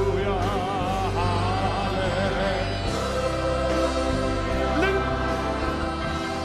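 Christian worship song: a singer's voice wavering in a long melodic line over steady instrumental backing.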